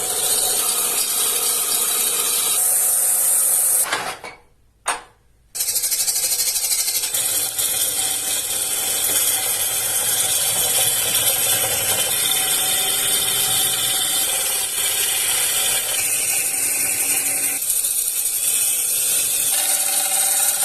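Wood lathe spinning a wooden bowl while a tool works the turning wood, a steady loud hiss with a faint machine hum beneath. The sound drops out briefly about four seconds in, then carries on.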